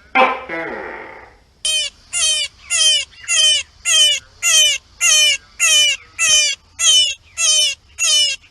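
Gecko calling: about a dozen short, evenly spaced calls, each falling in pitch, after one loud longer cry at the very start.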